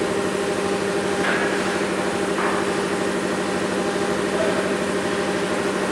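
CNC router's HSD spindle running steadily: a constant hum with a higher overtone over a noisy wash, with two short brighter hisses about a second and two and a half seconds in.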